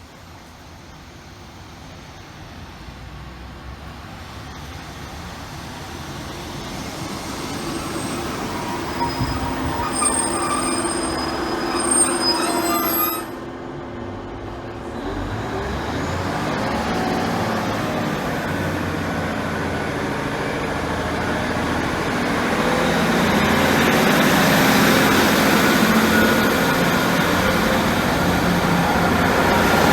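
Passenger train on the line, its rumble growing louder, with high wheel squeal in the first half. The sound drops suddenly about halfway through, then builds again with the engine running and a whine, loudest near the end.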